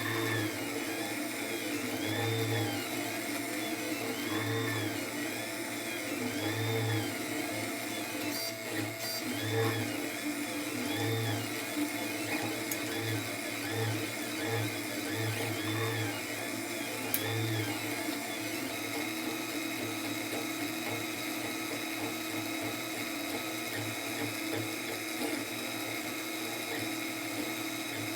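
Monoprice Select Mini 3D printer printing: its stepper motors whine in repeated rising-and-falling sweeps as the head moves back and forth, over a steady hum. About two-thirds of the way through, the sweeps stop and the sound becomes more even.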